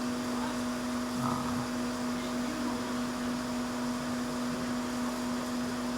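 Steady whirring hum of a running electric fan motor, with a constant low tone under a soft rush of air.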